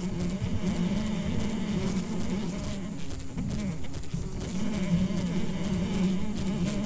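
Fly buzzing: one steady buzz that keeps wavering up and down in pitch, with light crackling over it.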